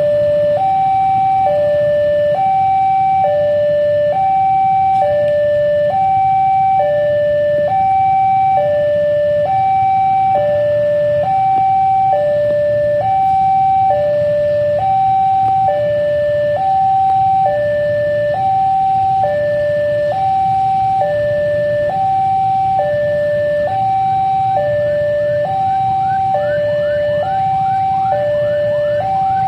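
A loud two-tone electronic warning alarm switching evenly between a higher and a lower tone, each held about half a second, over a steady low hum. Short rising chirps join in near the end.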